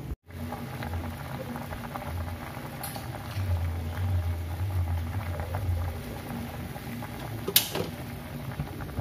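Pot of water at a rolling boil with pieces of eggplant in it, bubbling steadily. One sharp click near the end.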